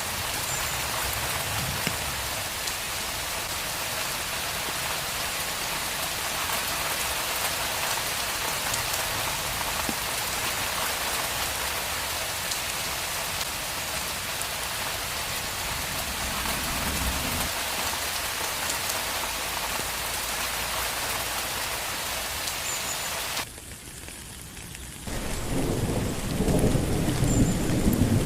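Steady heavy rain falling on a street, an even hiss. About 23 seconds in it cuts off abruptly and goes quieter for a moment, then low thunder rumbles in and is loudest near the end.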